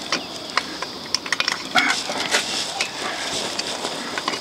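Irregular small clicks and knocks of a plastic wall plug being pushed and worked through a metal clothesline bracket into a drilled hole in brick, over a steady high chirring of insects.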